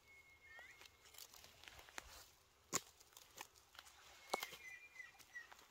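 Footsteps crunching through dry fallen leaf litter, with sharp crackles and snaps, the loudest about three and four and a half seconds in. Faint, thin whistling bird calls sound at the start and again near the end.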